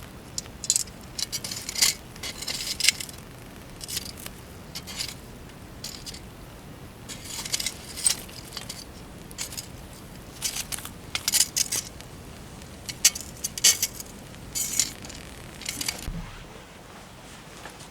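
Irregular clicking, clinking and short scraping of small hard objects being handled, ending with a low thump near the end.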